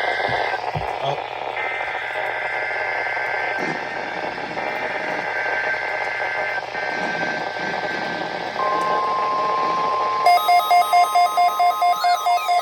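NOAA Weather Radio test signal received through static hiss. Repeated bursts of the SAME digital header come first, a buzzing two-tone data warble. About 8.5 s in, the steady 1050 Hz warning alarm tone begins, and about a second and a half later the weather radio receiver's own alert starts beeping loudly and rapidly, about three beeps a second.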